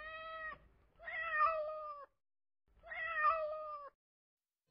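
A domestic cat meowing: the end of one meow, then two more drawn-out meows of about a second each, with short pauses between them.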